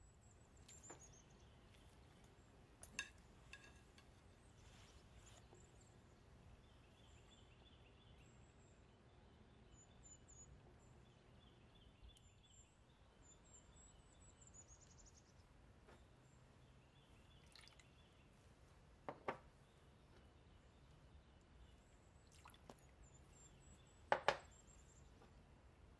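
Faint birdsong of high chirps and short falling trills over a quiet background, with a few brief sharp knocks. The loudest knock is a double one near the end.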